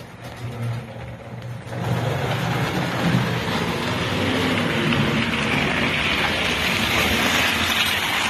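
American Flyer S-gauge model trains running on the layout's track: a low steady hum, then from about two seconds in a louder, steady rolling rush of wheels on rail as a train passes close by.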